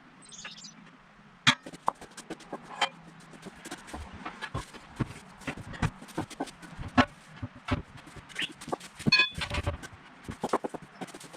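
Irregular knocks, clanks and clicks of hand work fitting a large tractor tire onto its steel rim, coming thick and fast with a few sharper bangs.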